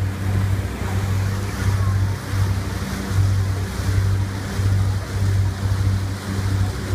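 Boat engine droning steadily under way, a low hum over the continuous rush of water along the hull.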